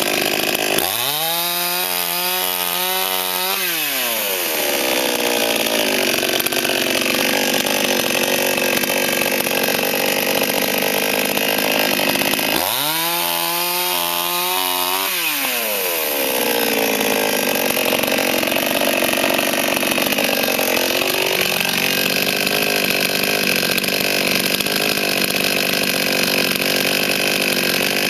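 Forward FGS-5204 two-stroke petrol chainsaw running at high revs, cutting wood. Twice, about a second in and again around the middle, its engine speed drops sharply for a few seconds and then climbs back up.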